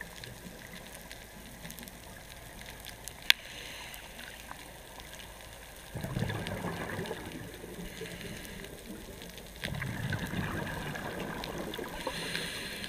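Scuba diver's regulator underwater: two bursts of exhaled bubbles, each starting suddenly and lasting a couple of seconds, the first about halfway in and the second about three-quarters in, with a hissing inhale near the end. One sharp click about a quarter of the way in.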